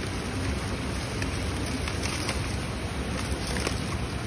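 Steady background rumble and hiss, with a few faint crinkles of aluminium foil being unwrapped.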